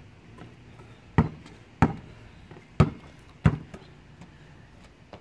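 A basketball bouncing on an asphalt court: four sharp, separate bounces at uneven spacing, roughly one every second.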